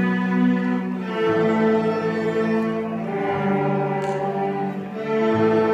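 Fourth-grade string orchestra of cellos and violins playing long bowed notes together, the chord changing about every one to two seconds.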